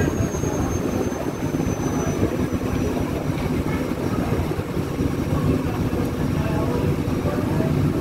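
Steady low rumble of a boat's engine running under way across the harbour, mixed with the rush of choppy water.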